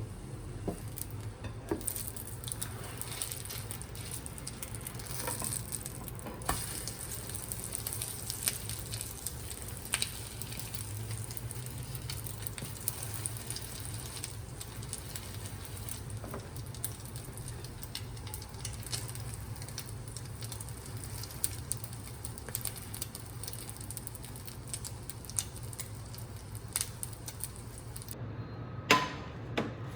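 Food sizzling in a frying pan: a steady frying hiss with scattered small pops and clicks, and a few louder taps near the end.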